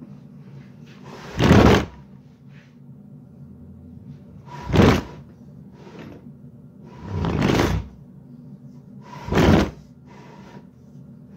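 Small electric motor of a homemade compressor cooling unit running with a steady low hum. Five loud, short thumps or rustles cut across it, about every two to three seconds.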